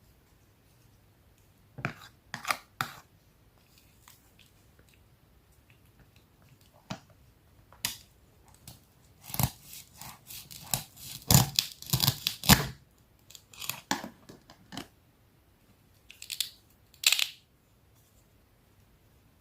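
Knife slicing through crisp apple: short, sharp cutting strokes in scattered groups, with a dense, loudest run of cuts around the middle and quiet gaps between.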